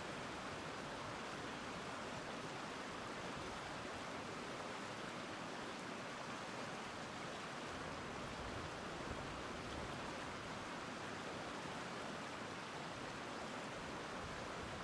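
River water rushing over rocks and through shallow riffles: a steady, even rush of water.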